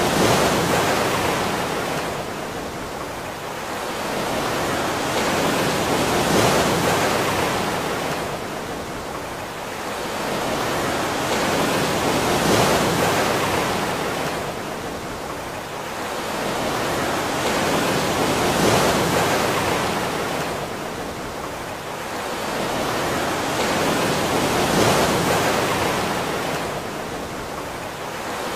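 Surf: a rush of water that swells and fades about every six seconds, like waves washing in over and over.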